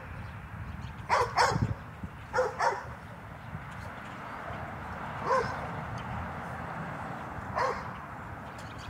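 Dog barking in short bursts while playing with a soccer ball: two quick barks about a second in, two more shortly after, then single barks spaced a couple of seconds apart.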